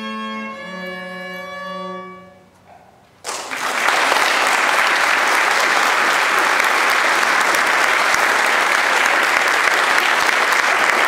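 Violin and cello sustain the final notes of a duet, which die away about two seconds in. After a brief hush, an audience starts applauding, and the applause is the loudest sound.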